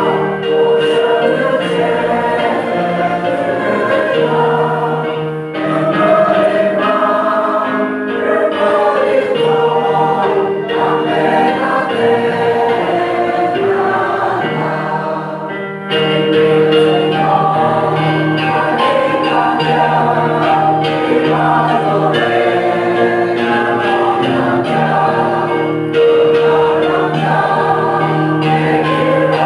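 A church congregation singing a hymn together, many voices holding long notes, with a brief pause about sixteen seconds in.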